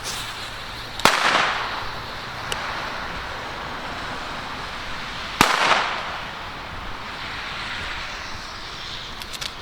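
Two firecrackers going off, about four seconds apart, each a sharp bang with an echoing tail that dies away over about a second.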